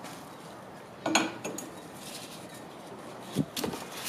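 Metal clanks and knocks as a go-kart's rear axle is slid back through its bearing carriers: one sharp ringing clank about a second in, then a dull knock and a few smaller knocks near the end.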